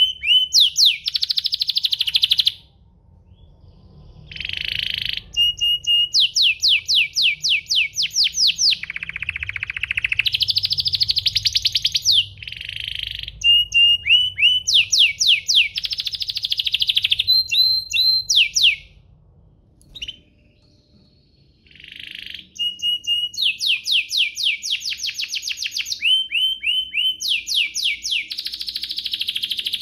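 Domestic canary singing long phrases of fast, repeated trilled notes and rolls, pausing twice for a few seconds.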